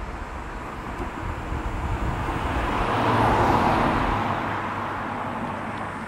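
A motor vehicle passing by: its noise builds, peaks about three and a half seconds in with a low engine hum under it, then fades away.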